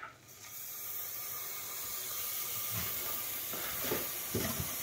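Can of expanding spray foam hissing steadily as foam is forced through its narrow applicator tip into a lawn mower tire, starting a moment in. A few soft knocks near the end.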